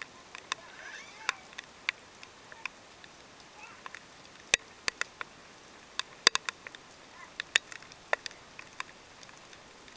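Rain dripping: irregular sharp ticks of drops landing near the microphone over a faint hiss of light rain, loudest at about four and a half and six seconds in.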